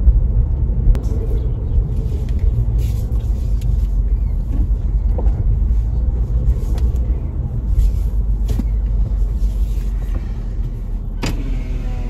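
Low, steady rumble of a car driving, engine and road noise heard from inside the cabin.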